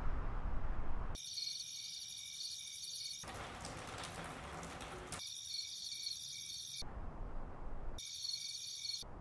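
Room ambience that switches abruptly at each cut. A low rumble alternates with a steady high chirring of night insects, such as crickets, and there is a stretch of even hiss in the middle.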